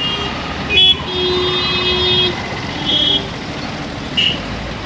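Busy road traffic with vehicle horns honking over steady engine and tyre noise: a short loud blast about a second in, a longer horn held for over a second, another short toot around three seconds, and a brief high beep near the end.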